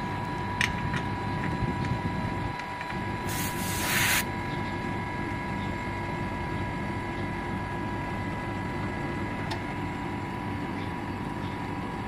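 Panasonic CU-PC18QKH 2 HP R22 outdoor unit running, its compressor and fan giving a steady hum with a steady whine. About three seconds in comes a short hiss, the refrigerant escaping as a gauge hose is fitted to the service valve port.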